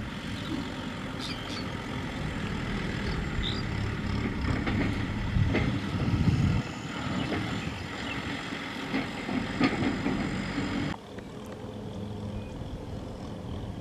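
Kubota M6040SU tractor's four-cylinder diesel engine running as it pulls a farm trailer over rough ground, with occasional knocks and louder swells in the middle. About eleven seconds in the sound suddenly drops to a quieter, steadier engine note.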